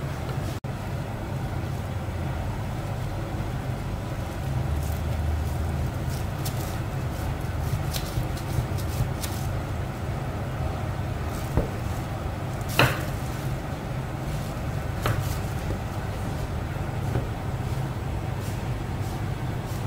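A large knife cutting through a block of raw fat on a marble counter, with scattered knocks and clicks as the blade meets the stone, the loudest about thirteen seconds in, over a steady low hum.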